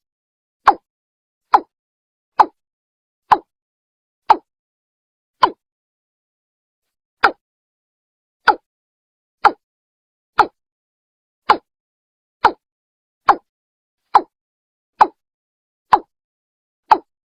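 Watercock calling: a steady series of short, hollow notes, about one a second, with a pause of a couple of seconds midway. It is a recorded call of the kind used as a lure to draw watercocks in.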